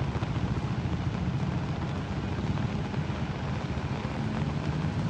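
A motor engine running close by with a fast, steady low throb, over the hiss of rain.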